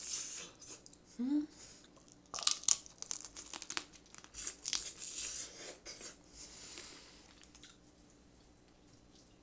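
Close-up eating sounds of a piece of steamed blue crab in spicy sauce: the shell crunching and crackling between the teeth, with wet chewing, in bursts that thin out near the end.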